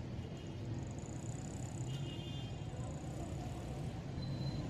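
Busy street noise: steady traffic with a low, constant engine hum underneath and a few faint high tones over it.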